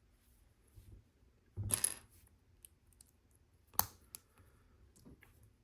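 Small plastic LEGO pieces clattering together in a short rattle about a second and a half in, followed by a sharp click near the middle and a couple of lighter clicks as pieces are handled and set down.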